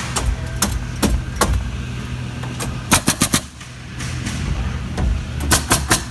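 Pneumatic nail guns firing in a factory: a few single shots, then quick runs of about four shots around three seconds in and again near the end, over a steady low machinery hum.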